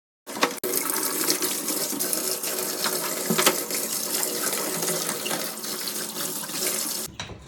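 Water running hard and splashing, as during rinsing in a washing-machine cleaning job; it starts suddenly a moment in and cuts off shortly before the end.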